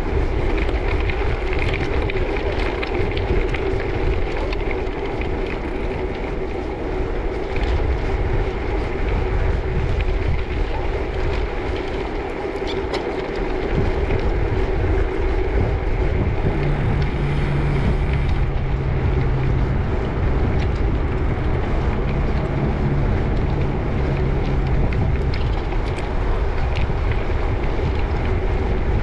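Wind rushing over the microphone and bicycle tyres rolling while riding a gravel bike, a steady, noisy rumble. A low steady hum joins for several seconds past the middle.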